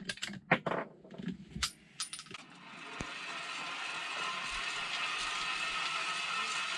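A quick run of sharp metallic clicks and clinks just after a shot from a 6.5×55 rifle: the action being worked and the spent brass case ejected. About two and a half seconds in, a steady whirring noise sets in and carries on.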